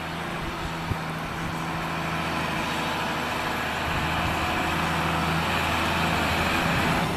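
Tractor engine running steadily as the tractor drives closer, growing gradually louder.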